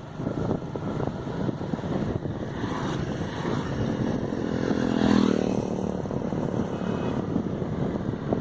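Wind buffeting the microphone while riding along a road, with a motor vehicle's engine passing close, loudest about five seconds in and then fading.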